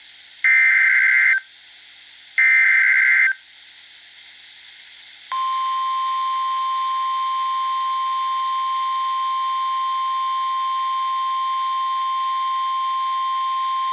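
Emergency Alert System SAME header: two short bursts of screechy digital data tones, each about a second long and about two seconds apart. From about five seconds in comes the steady single-pitch 1050 Hz NOAA Weather Radio warning alarm tone, which announces a tornado warning broadcast.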